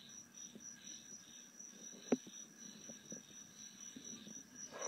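Crickets chirping faintly: a high, steady trill with a pulsing chirp about twice a second. A single soft click about two seconds in.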